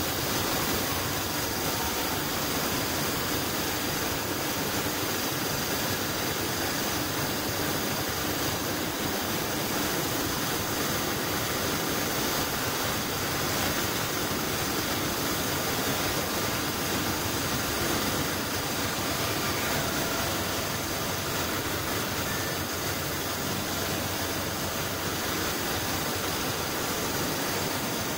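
Steady rushing hiss of compressed air with a faint steady hum, from a gravity-feed paint spray gun and the paint booth's air system while a motorcycle fuel tank is being sprayed.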